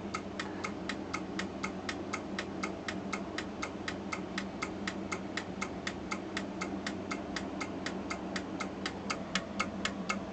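Edwards 2400 fire alarm control panel in alarm, its relays clicking in march time at about four clicks a second, over a steady low hum.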